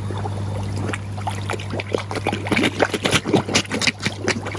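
Koi splashing and slurping at the water surface as they crowd and mouth at a hand feeding them: a rapid run of short wet splashes that thickens about a second and a half in. A steady low hum runs underneath.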